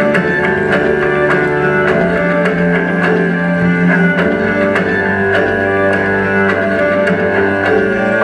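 Layered cello music: several bowed cello lines holding long notes over a low sustained tone, with light, evenly spaced percussive taps.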